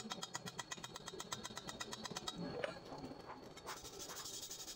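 A hand wire brush scrubbing a fresh stick-weld bead on steel box tubing, cleaning off slag and spatter, from nearly four seconds in. Before it come a rapid, even run of clicks and a few separate knocks.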